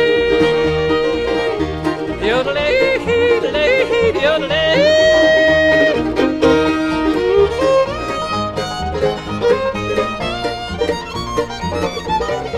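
Bluegrass band instrumental break: a fiddle carries the melody in long, sliding notes over banjo, guitar and a pulsing upright bass, with the plucked picking growing busier in the second half.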